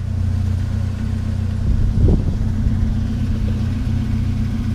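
Vehicle engine running steadily with a constant low hum, and a short knock about two seconds in.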